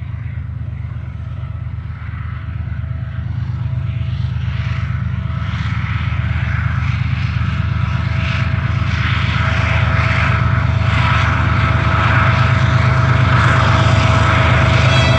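Two coupled GE TE33AC diesel-electric locomotives, each with a V12 GEVO diesel, hauling a tank-car freight train up a grade. A deep engine drone carries a steady high whine and grows steadily louder as they approach.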